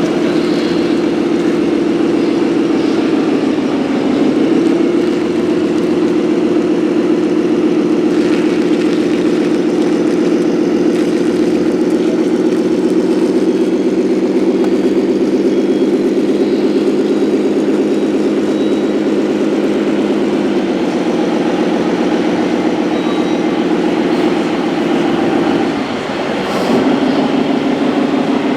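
Steady machine hum from a 1:14-scale RC model vehicle, dipping in pitch briefly about four seconds in and again near the end.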